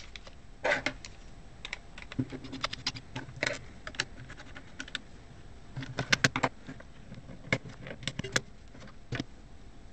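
Clusters of sharp clicks, taps and a few dull knocks from a robot vacuum's opened plastic housing being turned and gripped by hand while its 18650 lithium-ion cell is worked out of its holder.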